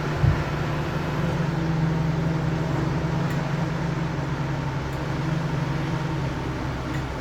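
Heavy diesel engine of a CAT 320 hydraulic excavator running steadily under work, with a single low thump a moment in.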